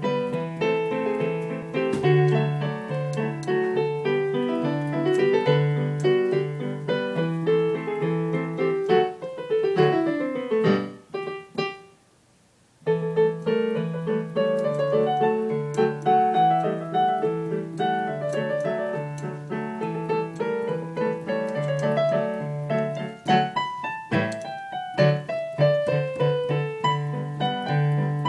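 Digital piano played with both hands: a melody over a steady, evenly repeated bass accompaniment. About ten seconds in a run of notes falls away into a pause of about a second, and then the melody starts again.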